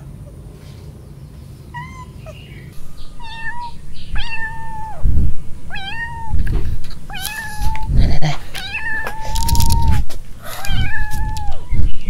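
Young kittens meowing over and over with high, thin calls, the cries of kittens separated from their mother. The calls are faint at first, then louder and closer together from about four seconds in, some held for nearly a second. Low thumps sound under a few of the calls.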